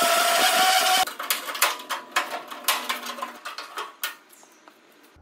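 Hand-held pneumatic cutting tool cutting through the rusted sheet metal of a pickup's bed side, a loud steady hiss and whine that stops suddenly about a second in. A series of light metallic clicks and clatters follows for about three seconds.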